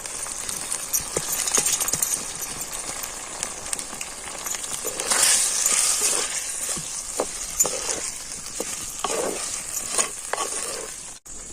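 Washed rice being stirred and sautéed in a pan of sizzling ground mint, chilli and coconut masala, with scattered clicks of the stirring spoon over a steady sizzle.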